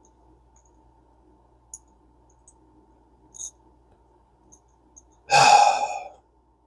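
A few faint, small metallic clicks of fishing-reel parts being handled, then a loud, frustrated voiced sigh lasting under a second, about five seconds in.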